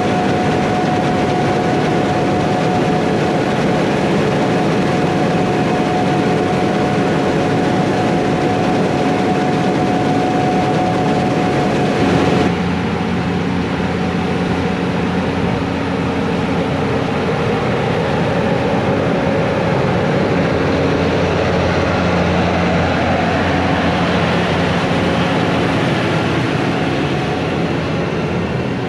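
Heavy harvest machinery running steadily, a diesel engine drone with a steady whine on top; about twelve seconds in the sound changes abruptly to a deeper engine hum.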